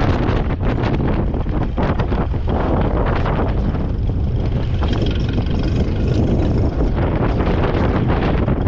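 Ferguson TED20 tractor's four-cylinder petrol/TVO engine running steadily, with heavy wind buffeting the microphone.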